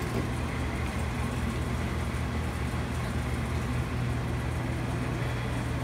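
A steady low mechanical hum, with no distinct knocks or clicks.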